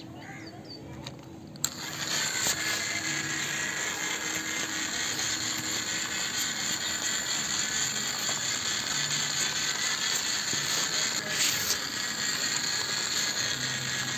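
Small DC motor of a homemade matchbox toy truck running steadily with a high, even hum as the truck rolls over concrete. It comes on with a click about a second and a half in.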